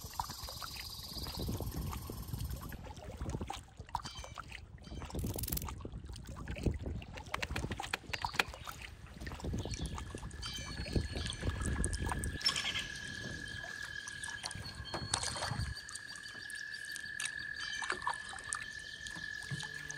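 Canoe paddles dipping and pulling through calm water, with splashes, drips and occasional light knocks of paddle against the hull. A thin, steady high tone comes in about halfway through.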